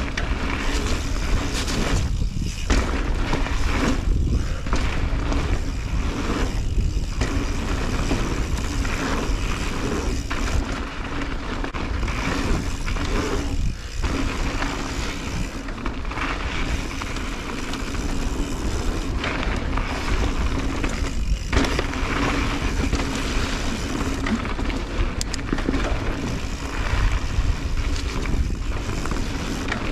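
Mountain bike riding over a dirt trail, heard from the bike or rider: steady tyre and rattling noise with heavy wind rumble on the microphone, easing off briefly a few times.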